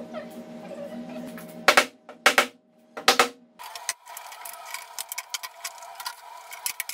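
Steel bar clamps being set and tightened on a glued wooden panel: three loud knocks about two to three seconds in, then a run of light metal clicks and rattles, over a steady hum.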